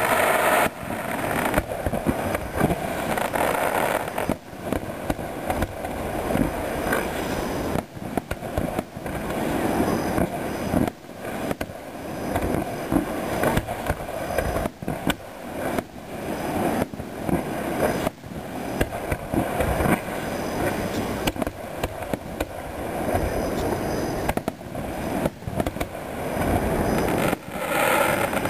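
Aerial fireworks display: shells bursting in a continuous barrage of sharp bangs and crackle, many reports every second.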